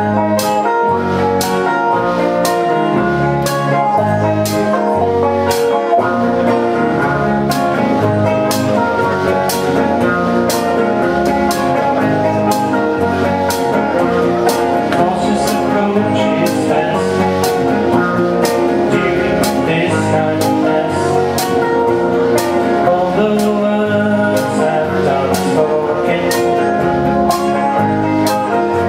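Live band playing an upbeat song on strummed acoustic guitars and an electric guitar over a steady, even beat.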